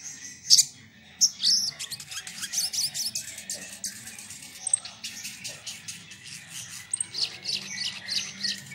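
Male olive-backed sunbird singing: a fast, almost unbroken stream of high, sharp twittering notes, with a few loud piercing notes in the first second and a half.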